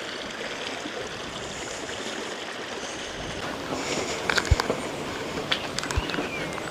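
River water flowing steadily, a continuous rushing hiss, with a few sharp clicks and knocks in the second half.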